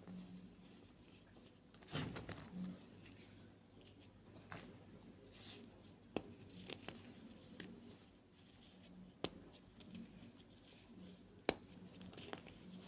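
White gym chalk being crushed: scattered soft crunches, a denser crumbling cluster about two seconds in, then a few single sharp cracks spaced a few seconds apart.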